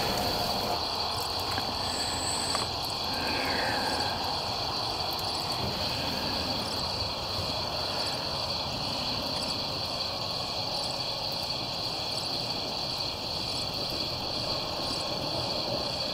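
Steady high-pitched chorus of crickets at night, with faint scattered clicks.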